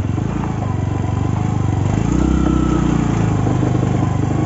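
Motorcycle engine running under way; its note rises and grows louder about two seconds in, then holds.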